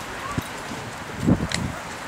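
Footsteps on a paved road, with a few irregular dull thumps, the loudest a little past halfway, and one sharp click just after it.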